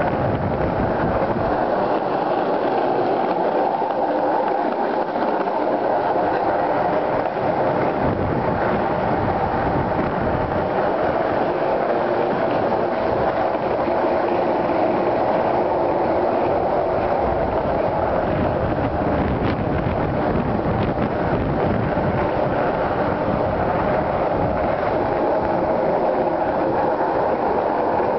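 Skateboard wheels rolling fast over concrete garage ramps: a steady, loud rolling rumble.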